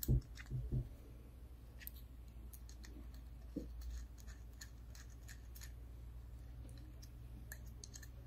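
Small clicks, taps and light scrapes of a hex key and small metal parts on an aluminium throttle body as a spacer is fitted into its top screw hole, with a few louder knocks in the first second.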